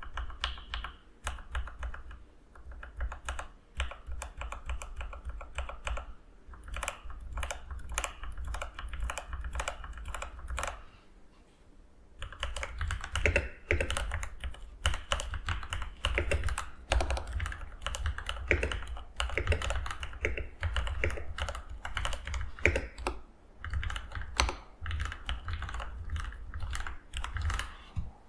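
Mechanical keyboard with Gateron Oil King linear switches being typed on: a steady patter of keystrokes, with a brief pause about eleven seconds in, after which the typing gets faster and louder.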